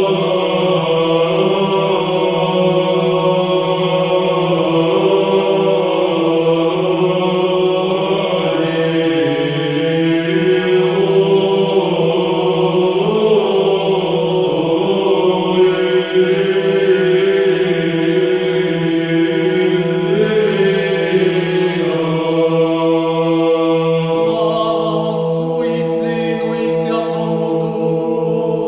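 Orthodox church choral chant in Church Slavonic: voices sing a slowly moving melody over a low note held steadily beneath it.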